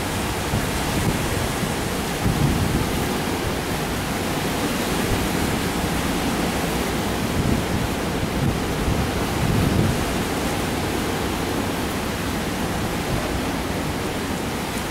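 Hurricane wind and heavy surf breaking on the beach: a loud, continuous rush of noise with a heavy low rumble. Gusts swell it about two and a half seconds in and again near ten seconds.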